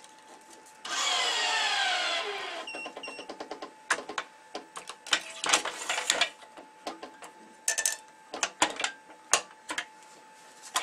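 Electric tensioner of a racket-stringing machine running for about two seconds, its pitch falling, followed by two short high beeps. After that come irregular clicks and knocks of string clamps and string being handled.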